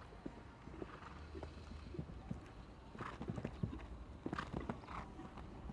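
Hoofbeats of a horse cantering on a sand arena and jumping a fence, a run of short irregular thuds.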